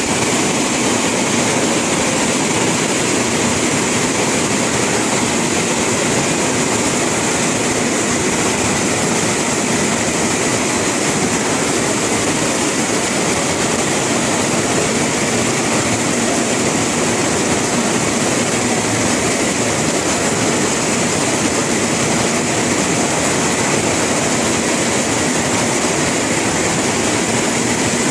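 Textile drying range machine running: its cylinder drying section makes a steady mechanical hum with a high hiss over it, unchanging throughout.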